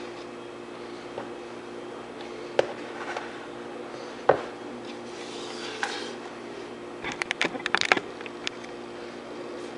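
Frosting being emptied out of its plastic tub into a bowl of crumbled cake: scattered knocks and scrapes, two sharper knocks, then a quick run of clicks and clatter near the end, over a steady low hum.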